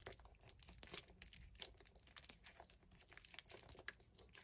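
Faint crinkling and crackling of a homemade squishy made of thick clear adhesive tape stuffed with polyester padding, squeezed and turned in the hands: many small irregular crackles.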